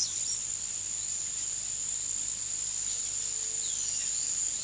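Steady high-pitched insect trill, with a few faint falling whistles over it.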